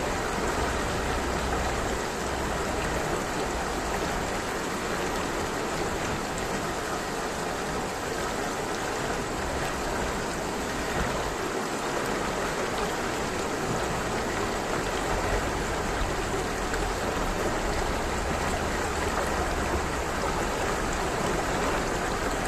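A clear stream murmuring steadily, its water rushing with an even hiss and no breaks.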